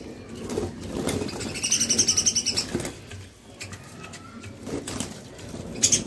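Caged budgerigars fluttering and flapping their wings as they are misted with water for a bath, with one bird's pulsing chattering call lasting about a second, beginning about one and a half seconds in.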